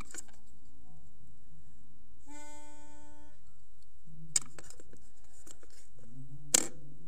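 A single held musical note, steady in pitch, lasting about a second: the starting pitch given just before a sung hymn. Two sharp clicks follow, the second near the end and the loudest, over a faint low hum.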